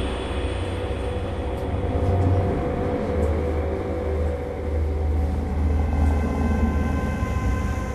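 A deep, steady rumbling drone with thin sustained tones held above it.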